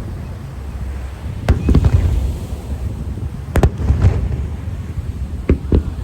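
Aerial fireworks shells bursting overhead: a sharp bang about one and a half seconds in, another about three and a half seconds in, and two in quick succession near the end. Each bang is followed by a rolling rumble and crackle, over a continuous low rumble.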